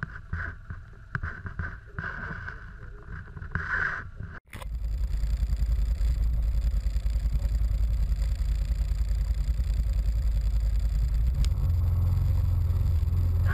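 Can-Am Commander 1000 side-by-side's V-twin engine running as it drives. It is fainter and wavering at first, then after a sudden change about four seconds in it becomes a loud, steady low drone heard from inside the cab.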